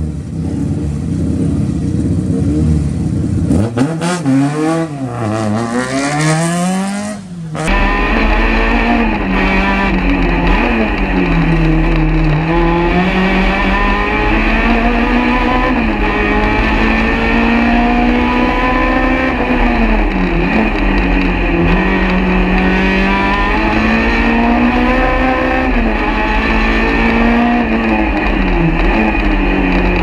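Race-prepared VW Golf GTI's four-cylinder engine revving in several quick rises and falls. Then, after a sudden change about eight seconds in, it runs hard under full load up the hill, heard from inside the cabin, its pitch climbing and dropping with gear changes and corners.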